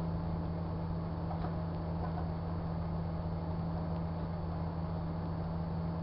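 Microwave oven running: a steady low hum, unchanging throughout.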